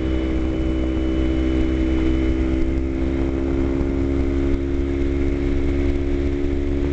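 Kawasaki Ninja 250 parallel-twin engine running at a steady throttle while cruising, its pitch holding constant, with wind and road rush underneath.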